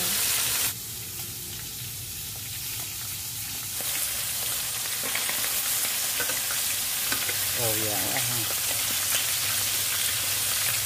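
Batter-coated frogs deep-frying in a pan of hot oil: a steady sizzle with scattered small pops and crackles. It drops suddenly in level just under a second in and comes back up about four seconds in.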